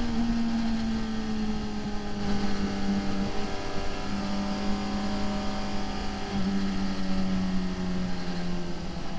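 Onboard sound of a sport motorcycle's engine running at a steady note with heavy wind rush. The engine note eases a little lower in a couple of small steps as the bike slows on the brakes.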